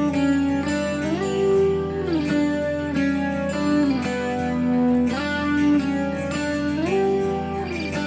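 Background music: a guitar-led instrumental with plucked strings and notes that slide up and down.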